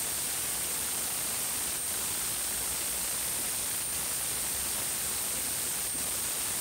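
Steady hiss of recording background noise with a faint, constant high-pitched whine.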